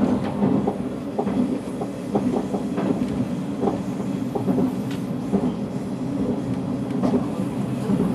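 Cabin noise of a KTX train running at speed: a steady low rumble with irregular clicks and knocks from the running gear on the track, heard from inside the passenger car.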